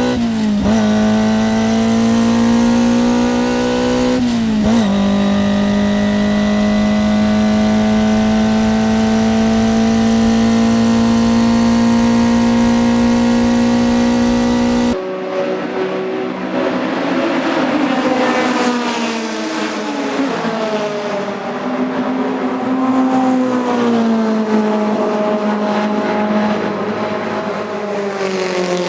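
Toyota 4A-GE 20-valve inline-four racing engine at full throttle: it shifts up twice in the first five seconds, each time the revs dropping and climbing again, then pulls with the revs rising slowly. About halfway through the sound changes abruptly to a quieter, thinner tone, and the revs fall and rise again in steps.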